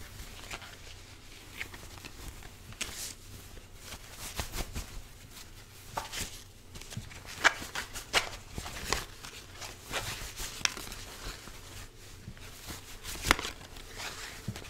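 A deck of cards being shuffled by hand: irregular soft clicks and rustles of cards against each other, with a few sharper snaps.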